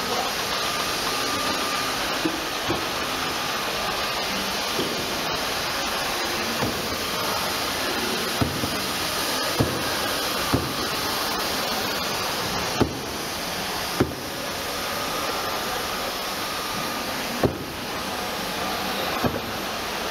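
Steady hiss of steam from a steam-heated shrink-sleeve tunnel, with a faint steady tone and short sharp knocks every second or few.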